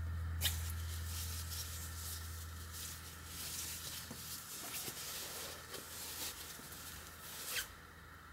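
Light handling noise as a fabric tie strap is drawn across and wrapped around a handmade journal, with soft rustling and two sharp clicks, one about half a second in and one near the end. A low hum fades out over the first few seconds.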